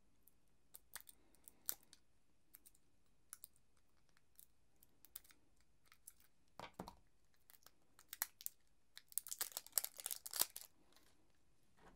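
Light clicks and plastic crinkling from fingers handling a 9-volt battery and its plastic packaging, with a denser spell of crinkling and tearing about nine seconds in.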